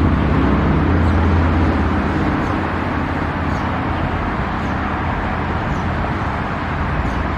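A motor vehicle's engine runs with road noise as a steady low drone. The drone is strongest for the first couple of seconds, then eases a little.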